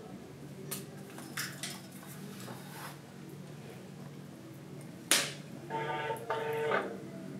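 Mobile phone call ringing out: a double-ring tone, two short bursts close together, heard about two-thirds of the way in. Just before it comes a single sharp thump, the loudest sound, with a few faint clicks earlier.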